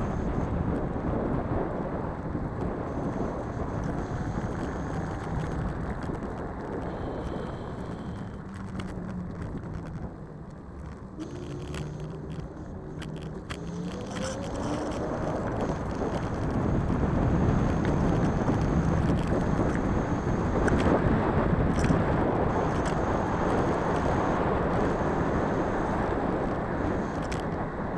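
Riding noise from a scooter: wheels rolling over pavement and wind on the microphone, a steady rumble that grows louder about halfway through.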